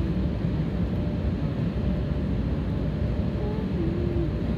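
Steady cabin noise of a jet airliner in flight: an even, low rushing din of engines and airflow, with a faint steady hum.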